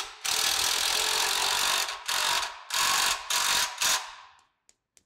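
Impact wrench hammering in bursts as it runs in the motor mount's bolts to tension the drive V-belts. One long burst of about a second and a half, then three short bursts, stopping about four and a half seconds in.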